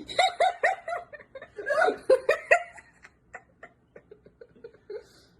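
A person laughing in quick, high-pitched bursts: two loud runs of laughter in the first three seconds, then softer, sparser chuckles trailing off.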